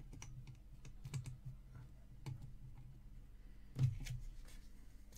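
Scattered small clicks and taps of plastic 7-segment LED displays being handled and pressed onto a kit circuit board, with one louder knock near the end.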